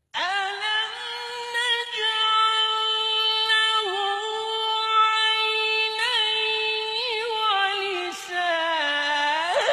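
A Quran reciter's high solo voice in melodic tilawat, holding one long drawn-out note. The note has several small ornamental turns and sweeps sharply upward near the end.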